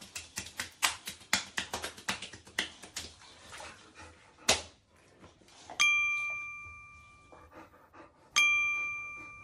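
Hands patting a wet boxer dog's head in bath water, quick light pats at about four or five a second, then one sharper smack. After that a bell dings twice, each ring fading out over about a second and a half.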